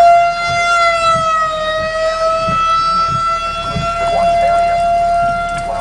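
Outdoor tornado warning siren sounding a steady tone, dipping slightly in pitch about two seconds in before settling back; it is sounding for a tornado warning.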